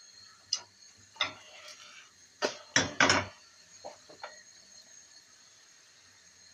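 Frying pan knocking and clattering on a gas stove's burner grate as a pancake is turned over: a run of sharp knocks over the first three seconds or so, then a few lighter taps about four seconds in.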